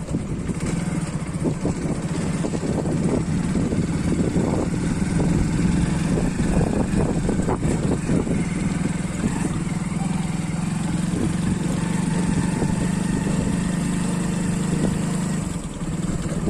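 Hero Splendor Plus BS6 fuel-injected single-cylinder motorcycle engine running steadily, with short ticks and knocks over the drone. The ticking is the fault noise the bike was brought in for, which comes at 30–40 km/h and which the dealer could not trace to the meter or the headlight.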